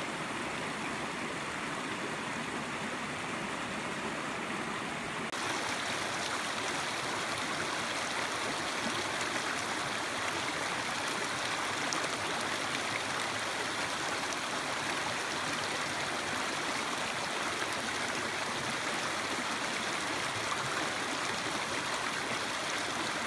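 Small mountain creek running over rocks and riffles: a steady rush of water, a little louder after about five seconds.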